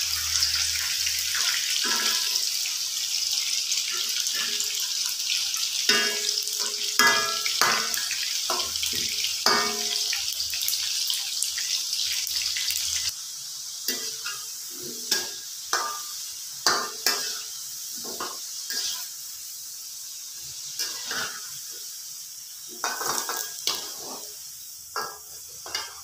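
Potato wedges deep-frying in oil in a steel wok: a steady sizzle, with a slotted metal spoon scraping and clinking against the pan as the pieces are turned. About halfway through, the loud sizzle and a low hum drop away suddenly, leaving quieter bubbling and spoon knocks.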